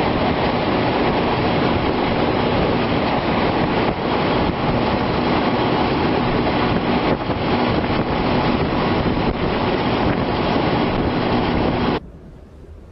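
Loud, steady roar of storm wind, like a passing freight train. It cuts off sharply near the end to a much quieter background.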